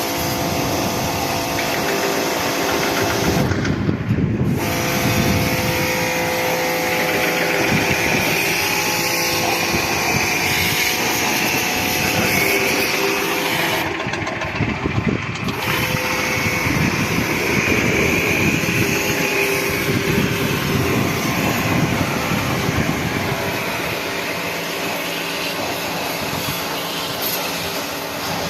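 A motor-driven machine running steadily with a loud hiss; the hiss drops out briefly twice, about four seconds in and again about fifteen seconds in.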